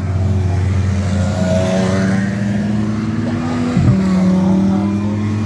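Race car engines running at low speed as cars roll past in procession on a formation lap. One engine's note climbs slowly for about four seconds, then drops abruptly with a short thump and carries on steady at a lower pitch.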